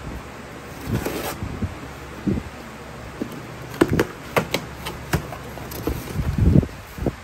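Cardboard shipping box being opened by hand: the cardboard is handled and the flaps pulled up, with a quick run of sharp cracks and snaps in the middle and a few dull thumps against the box.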